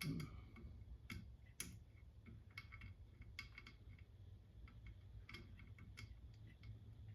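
Faint, irregular metallic clicking, a few clicks a second, from a wrench running a lock nut onto the stud of a 1966 Mustang's rear shock absorber.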